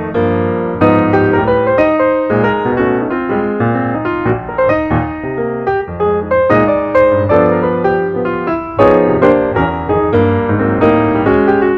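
Intro music played on a piano, a steady stream of notes over low bass notes.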